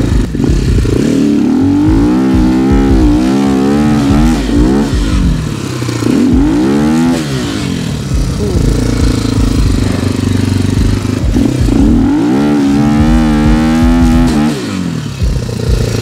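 Sharmax RX300 enduro motorcycle engine revving hard and falling back about three times, held high for a few seconds each time, as the rear wheel spins in deep, heavy snow with the bike stuck.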